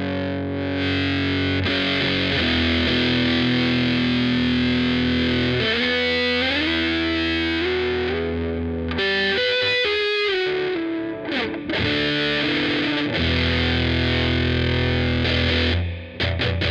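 A Squier VM Jazz played through a Killer Otter Electric Party Animal fuzz pedal into an AC30 amp modeler: a thick fuzz tone on sustained notes, with a line of notes stepping up and down in the middle and a short break near the end.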